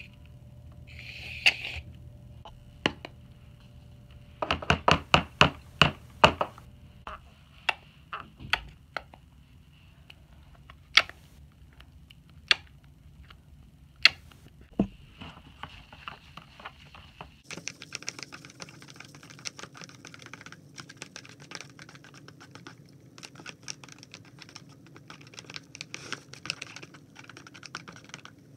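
Aerosol shaving cream hissing briefly into a plastic tub, followed by a run of sharp clicks and taps and then scattered single clicks. About two-thirds of the way through, a steady, dense, crackly clicking begins: the foamy slime mixture being stirred in the plastic tub.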